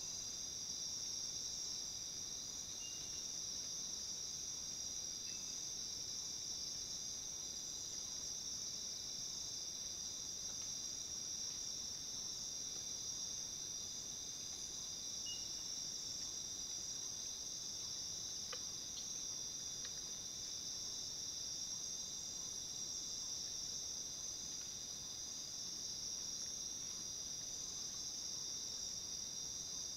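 Nighttime insect chorus: a steady, unbroken high-pitched trill from crickets, with a few faint short chirps now and then and a couple of faint clicks about two-thirds of the way in.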